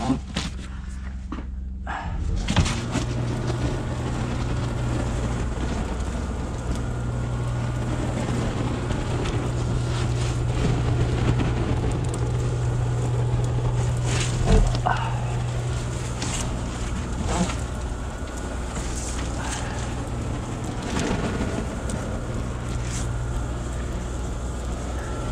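Insulation blowing machine running, pushing loose-fill fiberglass through the hose: a steady hum and rush of air that starts about two and a half seconds in, with scattered light clicks.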